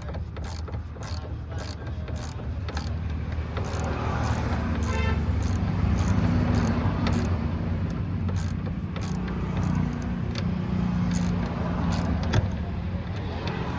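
Ratchet wrench clicking as the dosing motor's mounting bolts are tightened, over the steady hum of a vehicle engine running nearby. The hum gets louder in the middle.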